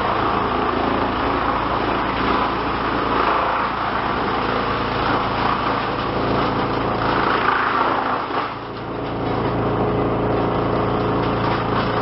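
Pezzolato PTH/S 480/660 drum wood chipper running on its 75 kW electric motor: a steady hum under the uneven rushing noise of the drum chipping wood fed through the rollers. The noise drops briefly about eight and a half seconds in, then picks up again.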